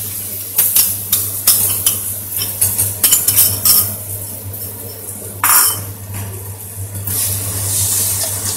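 Metal spatula clinking and scraping against a metal kadai as milk is stirred into ghee-fried vermicelli, with irregular sharp clicks and one longer scrape about five and a half seconds in, over a light sizzle from the hot pan.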